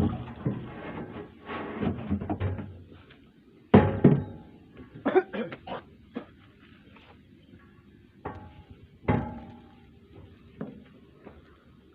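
Irregular knocks and clunks of things being handled. The loudest is a pair about four seconds in, with more around five seconds and nine seconds in.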